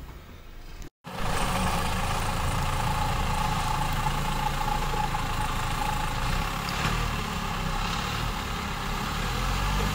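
Engine of a custom-built LuAZ off-road vehicle running steadily, after a quieter first second and a brief dropout in the sound about a second in.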